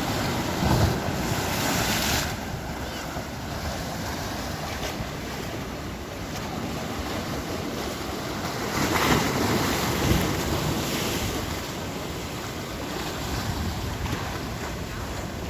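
Atlantic Ocean surf breaking on the shore, a steady wash of waves with two louder surges, one at the start and one about nine seconds in. Wind buffets the microphone throughout.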